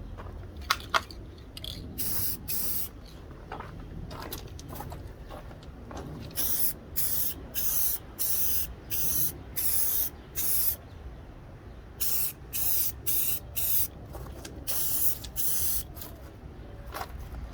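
Aerosol can of Krylon ColorMaxx gloss clear coat spraying in a run of short hissing bursts, each about half a second long, with pauses between. Two sharp clicks about a second in.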